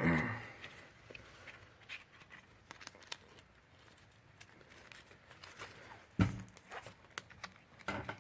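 Webbing shoulder strap being threaded through the metal brackets of a rucksack frame and pulled through: scattered light clicks and rustles, with a heavier knock about six seconds in.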